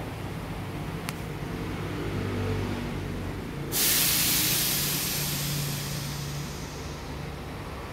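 A loud hiss starts abruptly about four seconds in and slowly fades over the next three seconds, over a low steady hum.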